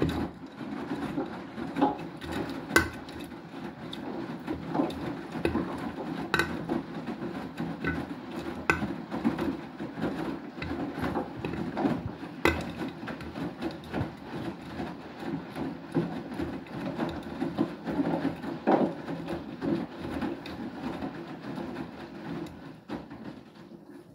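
Beko WTK104121W washing machine drum turning during the main wash, tumbling a small load of clothes through the water with irregular sloshing and knocking. It starts abruptly and stops just before the end.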